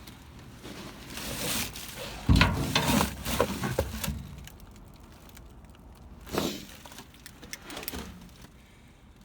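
Rummaging through junk in a dumpster: a run of clattering knocks and rustling about two seconds in, the loudest part, and another clatter past six seconds.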